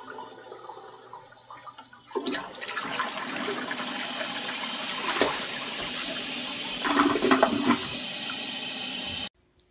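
Toilet flushing: water rushing and swirling in the bowl, starting about two seconds in, with a few louder surges, and cutting off abruptly shortly before the end.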